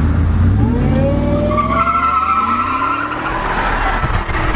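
A pickup truck's V8 revving up as it spins a donut, its rear tires squealing on the pavement.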